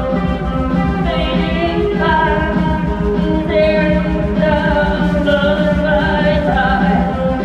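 Band music played live, loud and continuous, with a voice singing over sustained instrumental notes.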